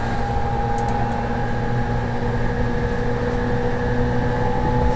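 Interior running noise of an E231-1000 series electric train: a steady rumble with several held, nearly level tones from the traction motors and inverter. This set is said to make an abnormal noise, most noticeable where the VVVF inverter switches between asynchronous and synchronous modulation.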